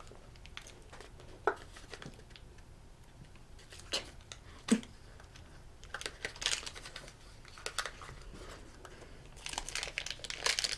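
Plastic toy packaging being handled and unwrapped: crinkling and rustling with a few sharp clicks and taps, the crinkling getting denser near the end.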